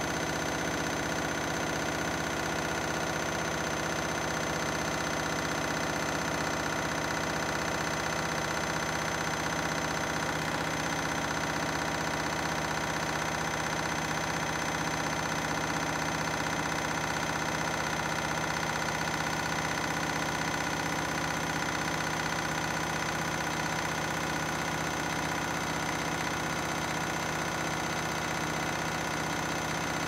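Front-loading washing machine on its 1600 rpm spin cycle, the drum spinning at a steady high speed. It gives a steady hum with a high motor whine that neither rises nor falls.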